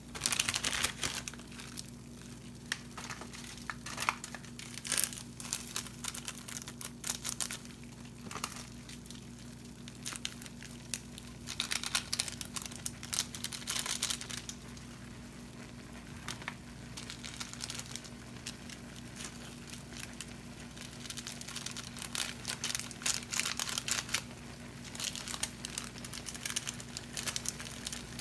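Plastic instant-ramen seasoning sachets crinkling as they are torn open and shaken out over the pot, in repeated short bursts, over a steady low hum.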